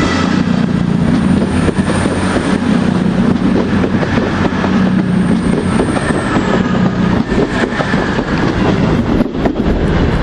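Diesel passenger train moving off, its engines running loud and steady, with wheels clicking over rail joints. A high thin whine fades out about two-thirds of the way through.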